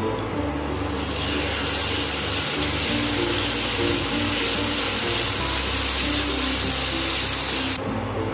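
Boneless chicken pieces sizzling in hot oil in a frying pan: a steady, loud hiss that cuts off abruptly near the end, with light background music underneath.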